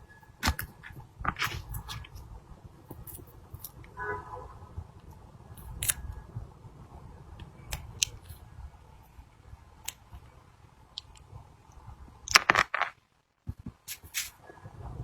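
Scattered sharp clicks and taps from small objects being handled, with a cluster of louder clicks near the end, over a faint low hum.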